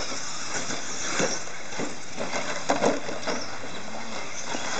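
Radio-controlled short-course trucks racing on a dirt track: a steady noisy running sound with scattered short knocks and clicks, the loudest a pair close together a little under three seconds in.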